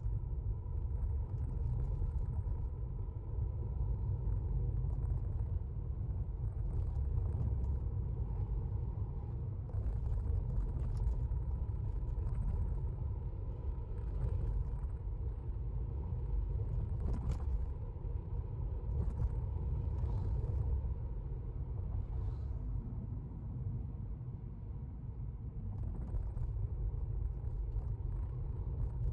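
Car driving, heard from inside the cabin: a steady low road and engine rumble, with a faint steady hum and a few light ticks above it.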